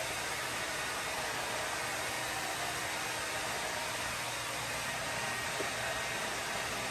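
Hand-held hair dryer running steadily, an even hiss of blown air with a faint low hum.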